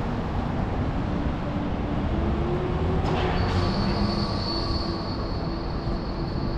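A high-pitched metallic squeal sets in about three and a half seconds in and holds steady over a low rumble of city traffic, typical of rail wheels or vehicle brakes squealing.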